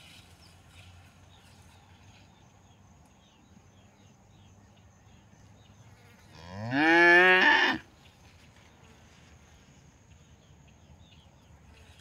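A cow mooing once, about six seconds in: one call of about a second and a half that rises in pitch and then holds before cutting off.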